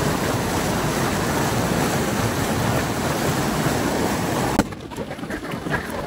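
Fast mountain river rushing: a steady, even rush of water that drops about four and a half seconds in to a quieter, more uneven rush.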